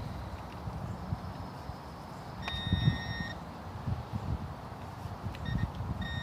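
Metal detector's steady electronic beep tone sounding about two and a half seconds in for nearly a second, with a brief blip and then the held tone again near the end, over a deep target being dug. Low thumps and rustling of handling and digging run underneath.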